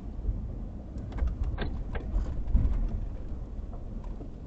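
Van driving on a rough paved road: a steady low road-and-engine rumble with a few sharp knocks and rattles from bumps, about one to two seconds in.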